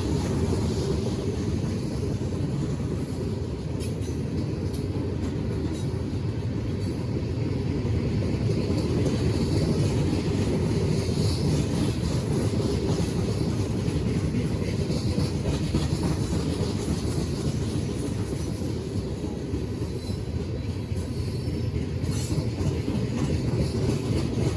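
Train rolling past, a steady low rumble of railcars moving over the track.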